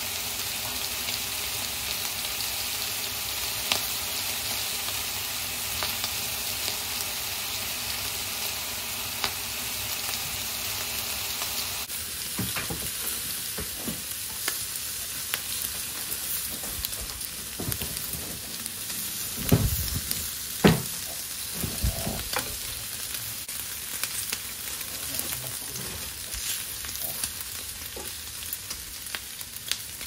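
Streaky bacon sizzling steadily on a hot griddle pan, with metal tongs clicking and scraping on the pan as the rashers are turned, and a few louder knocks about two-thirds of the way through.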